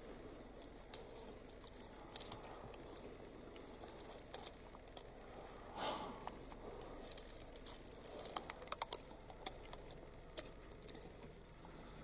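Leopard chewing and tearing at a porcupine carcass: irregular sharp clicks and crunches of quills and bone over faint background hiss.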